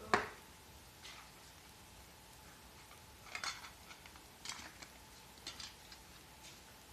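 A sharp knock, then a scatter of light clicks and scrapes from small parts and tools being handled while a travel kettle is worked on.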